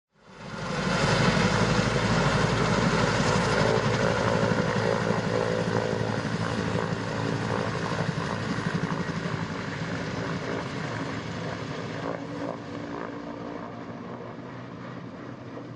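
A loud, steady machine drone with a fast low pulsing and several held tones, starting suddenly and slowly fading away.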